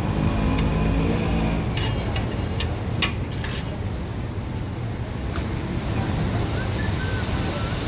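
Low rumble of street traffic, with a few sharp metallic clicks of spatulas on a large steel tawa about three seconds in. Near the end a steady high sizzle of liquid on the hot tawa sets in.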